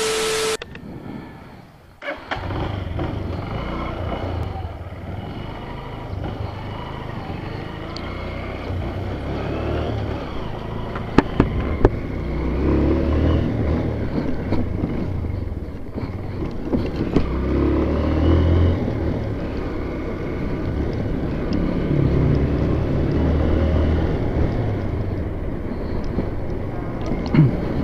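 A motor vehicle's engine running on the move, a low hum that rises and falls throughout, with a few sharp clicks about eleven to twelve seconds in.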